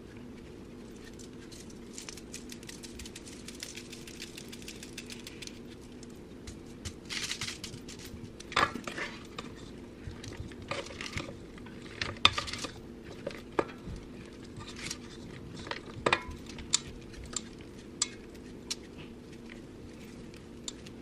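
Kitchen dishes and utensils clinking and clattering in scattered knocks, over a steady low hum.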